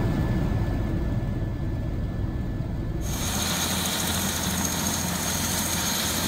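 Helicopter cabin noise in flight: a steady low rumble of rotor and turbine. About three seconds in it cuts abruptly to a louder hiss with a steady high whine.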